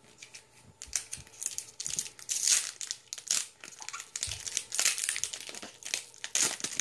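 Foil wrapper of a Pokémon trading card booster pack being torn open and crinkled by hand: a run of irregular crackling rustles, louder and denser from about a second in.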